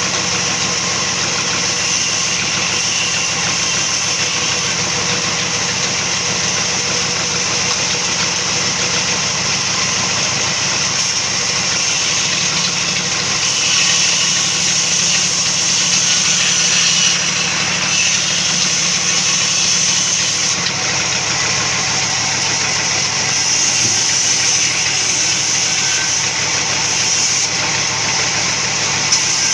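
Sawmill machinery running steadily: a continuous mechanical drone with a strong high hiss, swelling slightly a few times.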